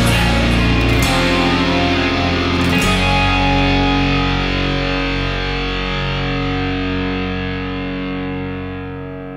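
Rock music with distorted electric guitar; about three seconds in it settles into a held chord that rings out and slowly fades.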